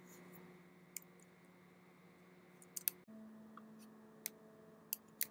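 Faint, sharp clicks of a computer keyboard and mouse, about half a dozen at irregular spacing, as a short numeric verification code is entered, over a faint steady low hum.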